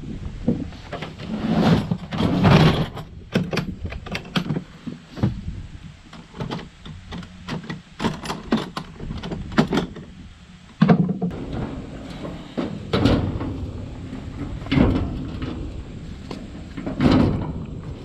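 Handling clatter: a plastic toolbox lid and latches opened and tools rattled, with a string of clicks, knocks and a few duller thumps.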